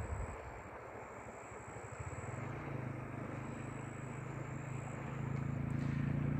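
A steady rushing noise, with a low engine hum coming in about two and a half seconds in and growing louder.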